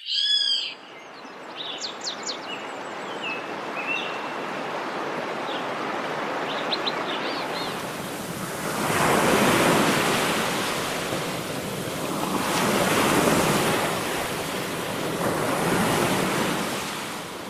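Water washing up onto a sandy riverbank, a steady rush that swells about every three seconds in the second half. Birds chirp in short bursts over the first few seconds, loudest right at the start.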